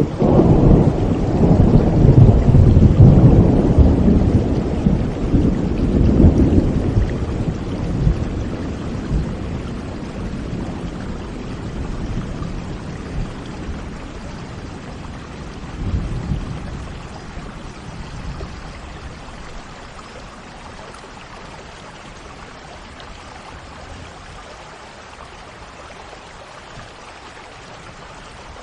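Rolling thunder over steady rain: a long low rumble in the first several seconds, a shorter one about halfway through, then the thunder dies away and leaves the even hiss of rainfall.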